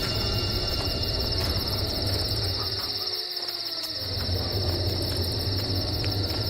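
Crickets chirping in a steady high trill, over a low steady hum that drops out for about a second just past the middle.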